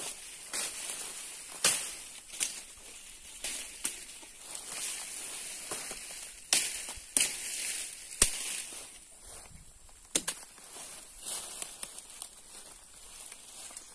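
Irregular crackles and snaps of dry vegetation and litter being stepped on or handled, a dozen or so sharp cracks spread unevenly, over a steady high-pitched hiss.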